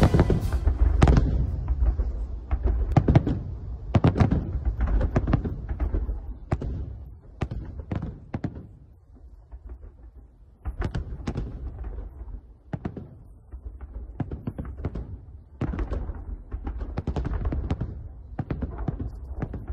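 Fireworks salute shells bursting overhead in a fast, irregular run of booms. The booms thin out briefly about halfway through, then come thick again.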